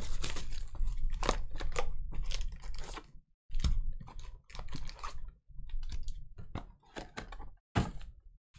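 Plastic shrink wrap crinkling as it is torn off a cardboard booster box, then the box being opened and foil booster packs handled and set down in stacks, a run of irregular crackles and clicks.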